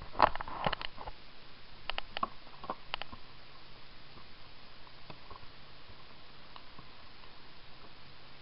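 A caught snook flopping on the hollow plastic deck of a kayak: a quick run of sharp slaps and taps in the first second, a few more between two and three seconds in, then only a faint steady hiss.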